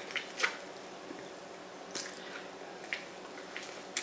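Mouth sounds of biting and chewing sauce-coated corn on the cob close to the microphone: a handful of short wet smacks and bites, the loudest about half a second in.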